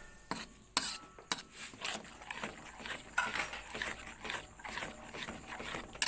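A spatula scraping and knocking against a wok while stirring a wet blended chili paste. There are a few sharp knocks in the first second and a half, then steady scraping strokes.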